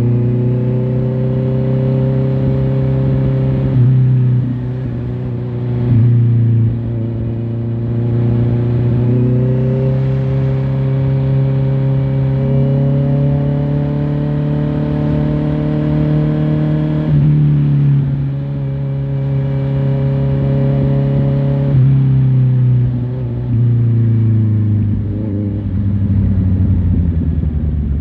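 Honda CBR650R's inline-four engine running under way, its note climbing and dropping as the rider accelerates and changes gear several times. The pitch falls near the end as the bike slows.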